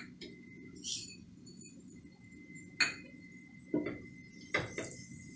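Kitchen clinks and knocks of small steel bowls, a steel spoon and an aluminium pressure cooker being handled on the cooktop, about five in all, the two heaviest knocks coming about four seconds in as the cooker is gripped by its handle. A steady low hum and a faint high whine run underneath.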